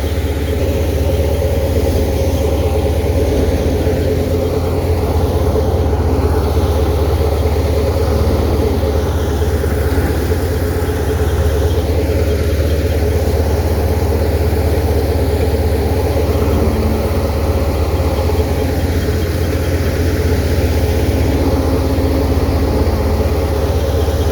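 An engine running steadily at an even speed, with a deep low hum.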